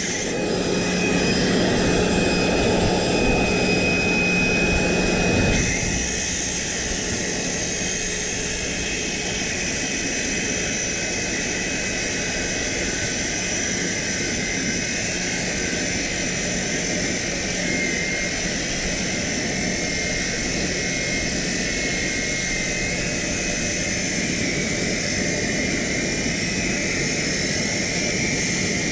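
Circular saw running and cutting concrete: a steady, whining machine noise. It is a little louder for about the first five seconds, then settles slightly lower and stays even.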